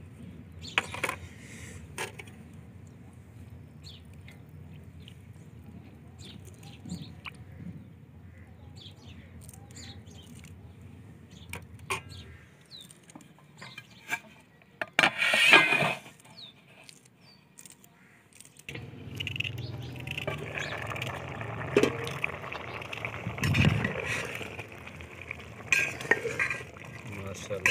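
Metal utensil clinking and scraping against a large metal cooking pot, with one loud clatter about halfway through. From about two-thirds of the way in, a steady wash of liquid noise from the pot, with more clinks over it.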